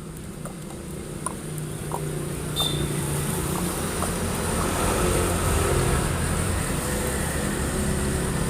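A motor vehicle engine running nearby, a low steady hum that grows louder about two and a half seconds in and stays up, with a few faint ticks in the first two seconds.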